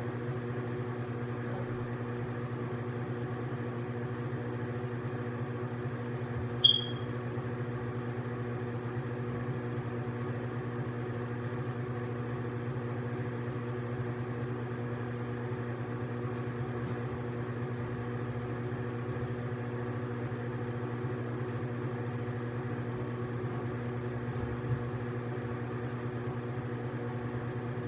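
Bathroom ceiling exhaust fan running with a steady hum. A brief sharp high squeak about seven seconds in, and a faint click near the end.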